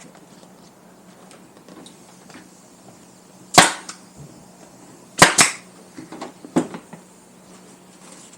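Pneumatic nail gun firing into a motorcycle seat to fasten the cover: one sharp shot about a third of the way in, then two in quick succession a little later, followed by a softer click.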